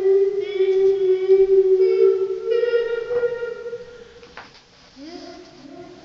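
A child singing long held notes into a homemade voice-effects unit with echo. One steady note steps up to a higher one about two seconds in and fades out by four seconds, then a shorter, lower note follows near the end.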